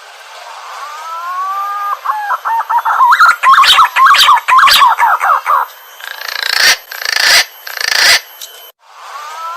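Green pigeon song: a few drawn-out whistles that rise and hold, then a run of quick wavering whistled notes, then several harsh rasping notes. After a short break near the end the song starts over the same way.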